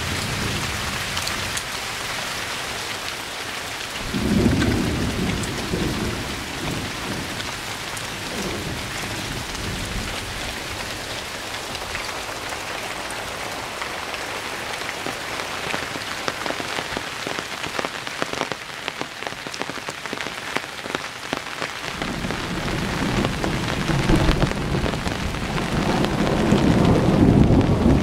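Thunderstorm: steady rain falling, with a rumble of thunder about four seconds in that fades over several seconds, and another rumble that builds from about two-thirds of the way through and is loudest near the end.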